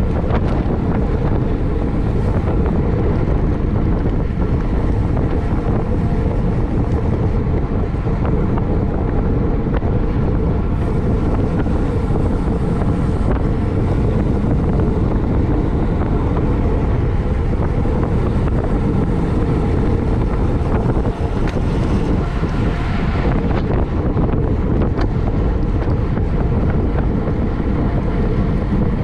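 Steady wind rush buffeting a camera microphone on a bicycle moving at racing speed, a dense low rumble that masks nearly everything else.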